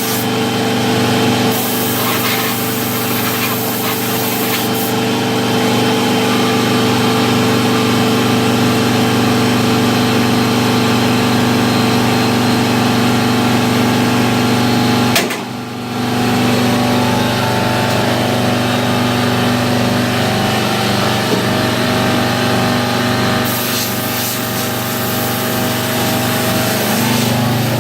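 An electric motor runs steadily with a loud rush of air, used to clear dirt out of an old furnace before it is relit. It cuts out for about half a second partway through, then starts again, and its hum shifts slightly later on.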